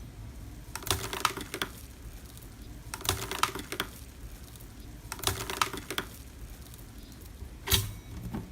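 Slime being squeezed and pressed by hand, giving three short runs of crackling clicks about two seconds apart, then one louder click near the end.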